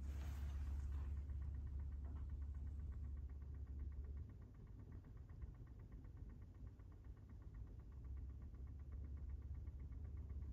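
Low, steady room hum that drops away for about four seconds midway and then returns, with faint, fast, even ticking over it.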